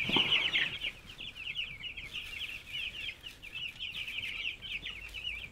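A brooder full of week-old Ross broiler chicks peeping continuously, many short high chirps overlapping into a steady chorus, a little louder in the first second.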